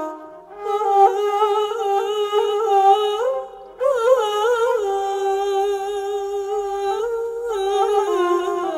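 Turkish song in the background: a solo female voice humming a wordless melody with wavering turns in pitch. It pauses briefly near the start and again a little past three seconds in.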